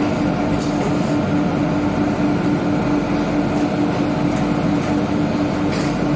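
Hydraulic baling machine for pet litter shavings running, its motor and pump giving a loud, steady hum over continuous mechanical noise.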